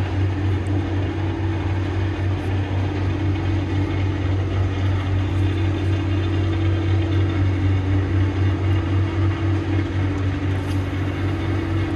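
Steady low mechanical drone, like a running engine or heavy machinery, with a constant hum above it and no sudden changes.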